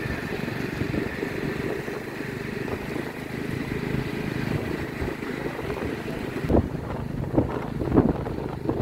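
Steady engine and road noise of a two-wheeler being ridden, heard from on board. From about two-thirds of the way in, wind buffets the microphone in irregular thumps.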